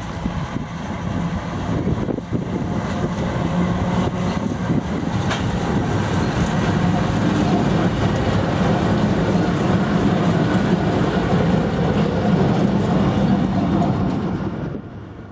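Two Genesee & Wyoming Australia GWU-class diesel-electric locomotives running light engine, their diesel engines droning steadily, with wheel and rail noise as they pass close by. The sound builds over the first few seconds and stays loud while the units go past.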